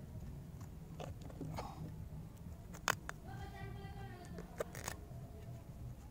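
A steel cleaver cutting through cauliflower on a plastic cutting board: a handful of separate sharp crunching cuts and taps. About three seconds in, a brief pitched call or voice, about a second long, sounds in the background.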